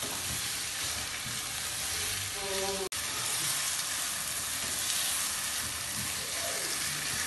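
Chicken pieces and sautéed onions sizzling steadily in a nonstick pan over a high gas flame, with a spoon stirring and scraping through them as the chicken is browned. The sound cuts out for an instant about three seconds in.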